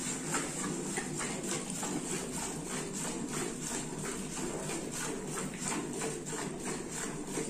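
Cow being milked by hand: streams of milk squirting into a steel bucket that already holds milk, in a steady rhythm of about two squirts a second.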